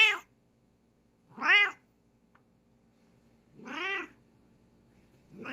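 Bengal cat giving four short meows, each rising then falling in pitch, spaced a second or two apart; the third is softer than the others.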